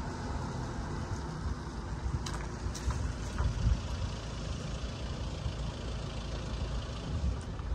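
Road vehicle engines running, a steady low rumble that swells a little around the middle, with a couple of faint clicks about two and a half seconds in.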